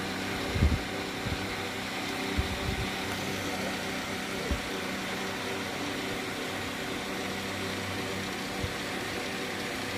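A steady mechanical hum over an even hiss, with a few soft low thumps, most of them in the first five seconds.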